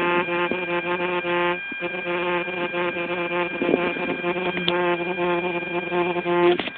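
Steady electric buzz with a constant pitch from the Traxxas Mini Slash's brushless motor system, breaking off briefly about two seconds in, with a few light handling knocks on the camera.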